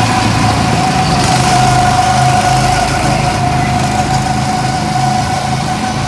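Go-karts' small gasoline engines running steadily as the karts drive around the track, with a steady high whine over the engine note.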